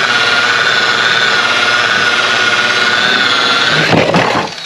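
Electric rotary polisher running with a steady high motor whine as its foam pad buffs compound into a fibreglass panel. Near the end the whine lifts slightly as the pad comes off, and there is a knock and clatter as the panel tips off its support.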